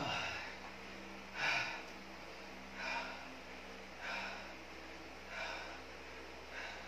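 A man breathing hard after an all-out 20-minute cycling effort, with a loud, rough breath about every second and a quarter as he recovers.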